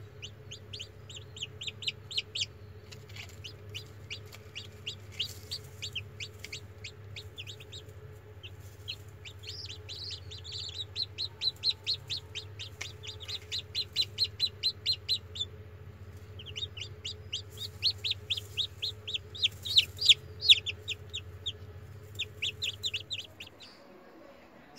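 Newly hatched chicks peeping: rapid runs of short, high chirps, several a second, growing louder toward the end. A steady low hum runs underneath and stops shortly before the end.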